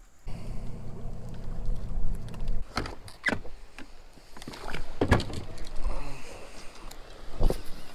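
A boat's motor hums steadily for about two seconds and then stops. Several sharp knocks on the boat follow, the loudest about five seconds in and again near the end.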